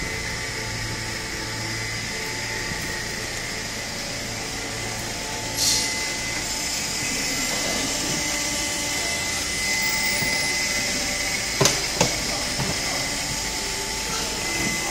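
Fuel and oil filtration cart's pump motor running steadily, with a high hiss that grows louder about six seconds in. Two sharp knocks sound about twelve seconds in.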